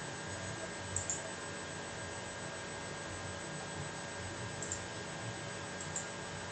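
Steady low hum and hiss of room tone, with a few faint clicks about a second in and again near the end.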